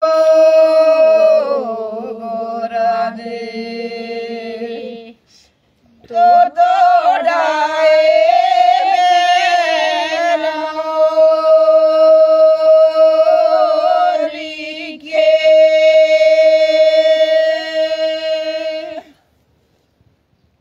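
Elderly women singing a traditional dev geet (devotional folk song) unaccompanied, in long held notes. There is a brief pause about five seconds in, and the singing stops about a second and a half before the end.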